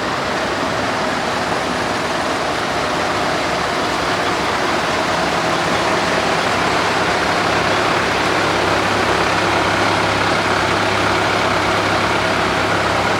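Fire trucks' engines running nearby: a steady, loud mechanical drone, with a low engine hum that sets in about halfway through.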